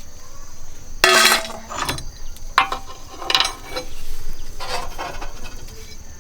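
Metal parts or tools clinking and clanging together about five times, the loudest strike about a second in, over a steady high-pitched insect drone.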